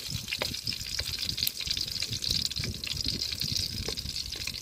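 Garlic cloves sizzling in hot oil in a wok: a steady, high hiss of frying with scattered small pops.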